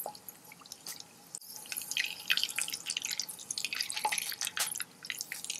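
Whole spices (cumin, pepper, bay leaf, star anise, cloves) crackling in hot oil in a wok: many quick, irregular pops and spits that start about a second and a half in.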